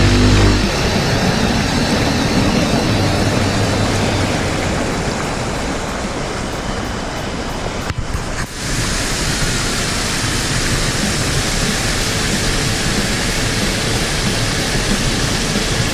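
A small waterfall rushing steadily as it cascades over rock ledges into a pool, with a short break about halfway in. A moment of music ends at the very start.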